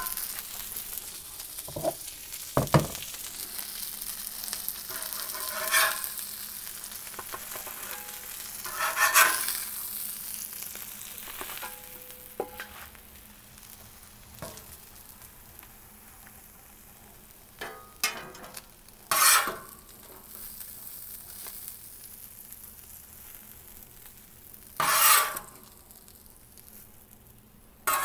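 Salmon fillets and asparagus sizzling on a Blackstone flat-top griddle, with a metal spatula scraping across the steel griddle top in short strokes as the food is lifted off. The sizzle fades through the first half, while the scrapes come every few seconds.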